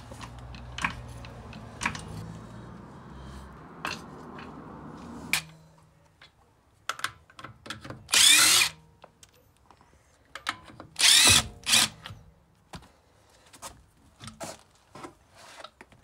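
Cordless impact wrench hammering wheel bolts loose on a Seat Leon Cupra's front wheel, in short loud bursts about 8 seconds in and twice around 11 seconds. Scattered clicks and knocks lie between them, with a steadier lower noise in the first five seconds.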